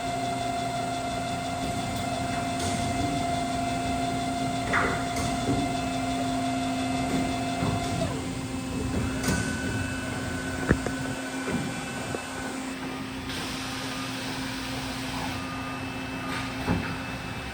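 Horizontal boring and milling machine running under power: a steady machine hum with several held tones. One tone stops about eight seconds in, and a higher one comes in briefly after it. Occasional sharp clicks and knocks.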